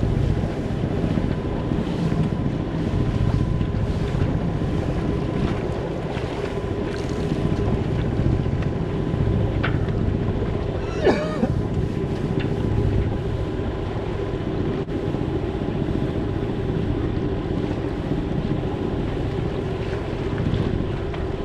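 Wind buffeting the microphone and water rushing along a small sailboat's hull while it motors under way, with the steady hum of its engine underneath. A short vocal sound about halfway through, from the seasick man bent over the rail.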